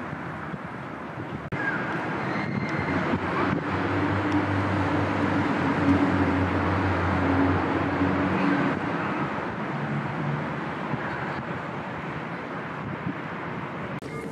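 Urban road traffic running steadily, with one engine's low hum standing out for a few seconds in the middle.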